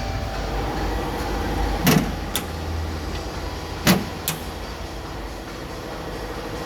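Double-head aluminium cutting saw running with a steady hum, broken by two sharp clunks about two seconds apart, each followed by a lighter click.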